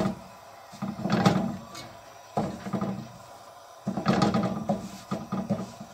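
A hand pressing and smoothing a thin sheet of tortilla dough on a griddle pan over a gas burner: three bursts of soft rubbing and light knocking, about a second in, around the middle, and a longer one near the end.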